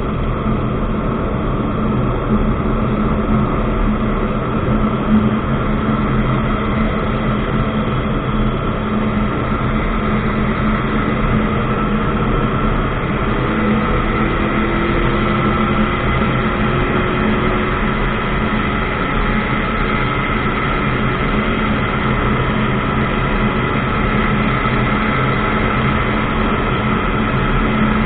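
Ultralight aircraft engine running steadily in flight, a constant loud drone. About halfway through, a fainter tone drifts slowly in pitch.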